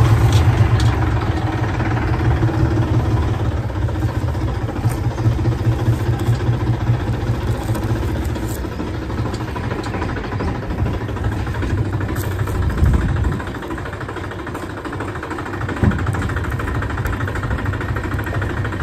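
Engine of a farm vehicle running steadily as it hauls a trailer loaded with sorghum fodder, heard from on top of the load, with one brief knock near the end.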